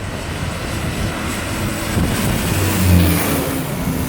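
Small propeller airplane passing low overhead on its landing approach, its engine getting louder to a peak about three seconds in, the pitch dropping slightly as it goes by.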